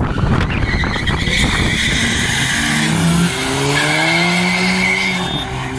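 Two cars launching off a drag-strip start line, a Volkswagen Golf among them, with tyre squeal. Their engines rev up hard, the pitch dropping back about three seconds in at a gear change and then climbing again as they pull away.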